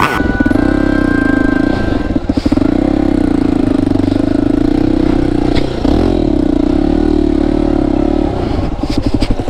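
Off-road motorcycle engine running hard under load on a trail, its revs dipping and picking back up twice.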